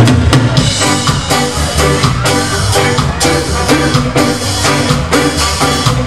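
Live ska band coming in together and playing an upbeat ska groove: drum kit, bass, electric guitars and keyboard, with trumpet and saxophone.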